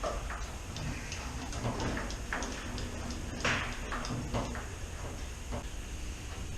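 Scattered light clicks and knocks of metal motorcycle parts and tools being handled during assembly, the loudest about three and a half seconds in, over a low steady hum.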